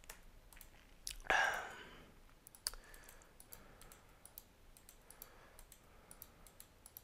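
Faint, scattered computer mouse clicks and key taps, irregular and quiet, with one sharper click a little before three seconds. There is a short breathy rush close to the microphone about a second and a half in.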